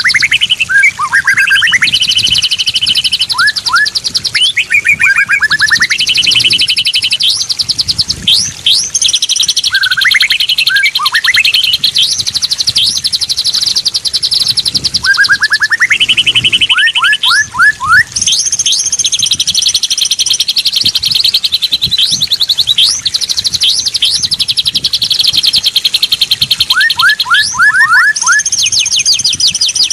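Straw-headed bulbul (cucak rawa) song mixed with other birds' chirping. It runs as continuous overlapping phrases of fast buzzy trills and quick runs of short rising whistled notes.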